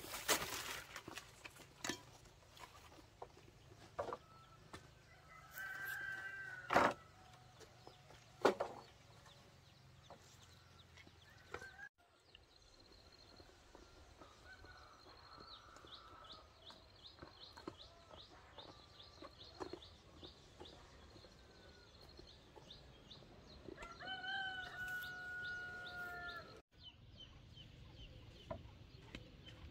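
A rooster crows twice: a short crow about six seconds in and a long, drawn-out crow near the end, with chickens clucking. Scattered sharp knocks are heard, and a fast, high chirping trill runs through the middle.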